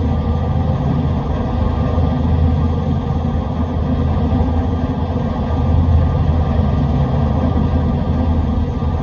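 Steady low rumble, an even drone with a deep hum and no distinct events.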